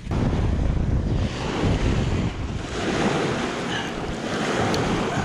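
Wind buffeting the microphone, with small waves washing at the shoreline, and one light click near the end.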